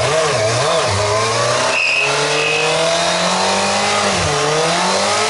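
Yamaha YZF-R1's inline-four engine held at high revs during a burnout, the rear tyre spinning on paving stones. The revs waver at first, climb slowly, dip about four seconds in and rise again.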